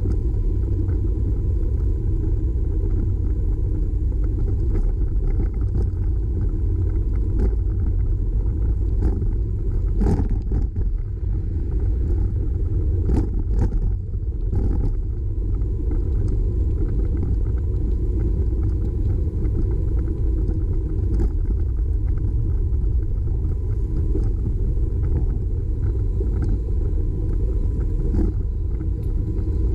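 Steady low wind rumble buffeting the microphone of a camera on a moving bicycle, mixed with tyre and road noise, with a few short knocks from bumps near the middle.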